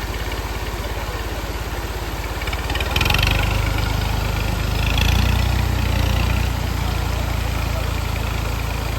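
A vehicle engine running steadily, revving up about three seconds in and again around five seconds before settling back.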